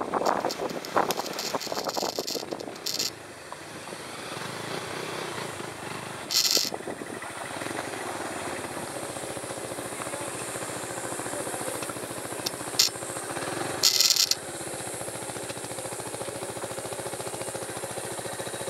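A 150 cc motorcycle engine running at low speed as the bike rolls slowly over wet gravel, with crackling from the tyres during the first few seconds. Two short bursts of hiss come about six and a half and fourteen seconds in.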